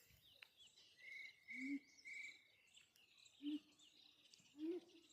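A monkey gives three short, low calls a couple of seconds apart, each rising and then dropping in pitch. They come over a steady insect buzz, with three short whistled bird notes in the first couple of seconds.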